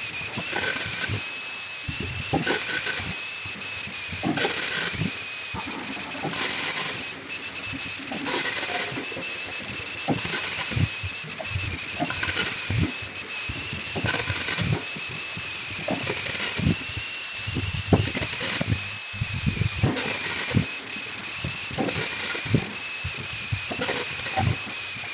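Automatic triangle nylon tea bag packing machine running in its cycle: a hiss of air about every two seconds, with metallic clicks and rattles from its moving parts and a steady high whine underneath.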